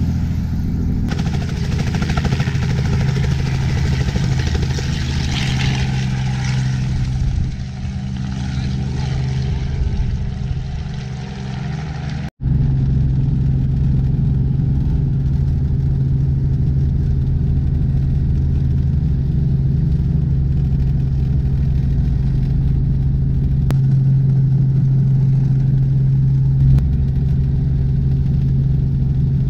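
Small two-blade helicopter's engine and rotor running with a loud, steady low hum, with extra rushing noise over the first several seconds. The sound cuts out for an instant about twelve seconds in and then carries on steady.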